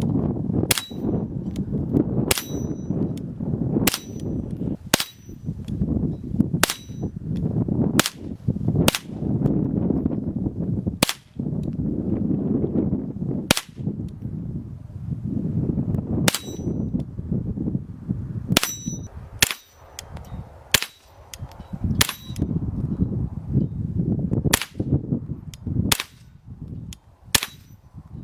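Around two dozen .22 rimfire gunshots fired at an irregular pace, sometimes in quick pairs. Many are followed by a short high ring, typical of bullets hitting steel targets, and a low rough noise fills the gaps between shots.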